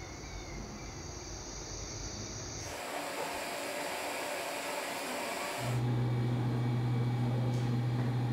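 Room tone: a steady hiss that changes abruptly twice, with a steady low hum coming in about two-thirds of the way through.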